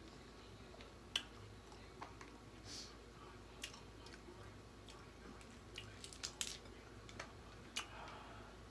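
Faint, scattered clicks and small cracks of crab-leg shells and seafood being handled in a bowl, with a quick run of clicks a little past the middle.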